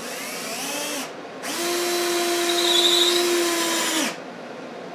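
Cordless drill driving two screws into wood. A short first run of about a second rises in pitch as the motor spins up. After a brief pause comes a longer, steady run of about two and a half seconds that cuts off sharply.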